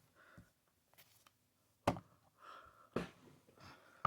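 Faint handling sounds of a Stream Deck XL being fitted onto its magnetic stand: a few light knocks and rustles with two sharp clicks about a second apart.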